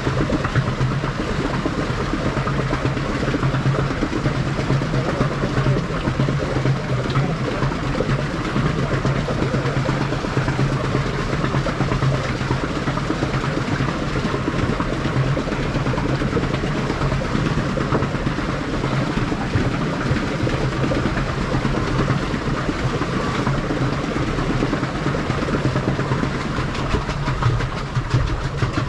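Water churning and splashing close to the microphone as a pedal boat moves through the river: a steady rushing noise with a low hum under it.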